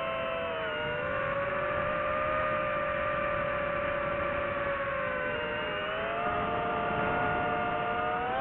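DJI FPV quadcopter's motors and propellers whining, several close pitches together. The pitch dips about half a second in, holds level, then climbs again from about five and a half seconds in.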